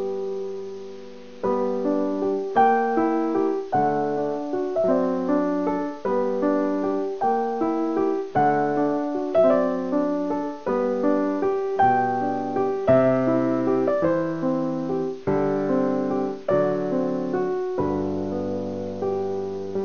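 Piano music: a melody over chords, each note struck and fading away. It dies down briefly and starts again about a second and a half in.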